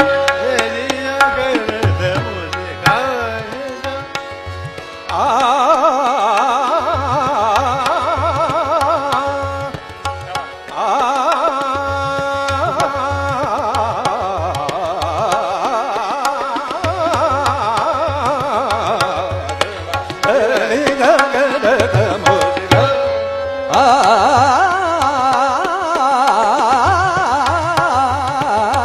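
Hindustani classical vocal music: a male singer accompanied by tabla, harmonium and a tanpura drone. The melody moves in fast wavering runs from about five seconds in, pausing briefly twice.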